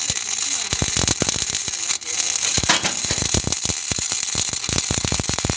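Electric arc welding on a steel trailer frame: the arc crackles and pops irregularly over a steady hiss, with a brief break about two seconds in.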